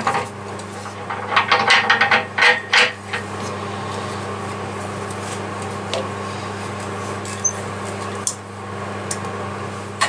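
Metal clinks and knocks as a four-jaw lathe chuck is unscrewed from the spindle and a wooden piece is threaded onto a screw chuck, most of them in the first three seconds with a few lighter knocks later. A steady low hum runs underneath.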